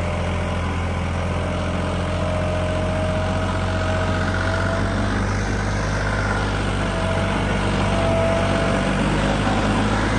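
New Holland 3630 tractor's three-cylinder diesel engine running hard under full load, rear wheels spinning in loose dry soil. Steady engine note with a thin, wavering whine above it.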